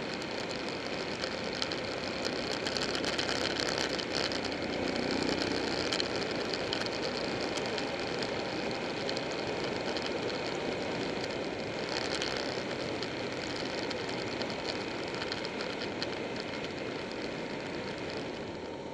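Buell 1125R sport motorcycle riding at road speed: its V-twin engine running under a heavy rush of wind noise on the bike-mounted microphone, easing off near the end.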